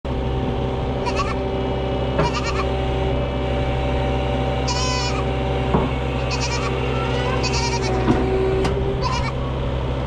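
Goats bleating repeatedly, about six short wavering calls a second or two apart, over a steady low mechanical hum.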